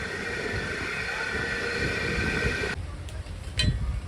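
Repaired farrata stand fan running with a steady whir and hum, free of rattling now that it has been fixed. The sound cuts off suddenly near three seconds in, followed by a single knock.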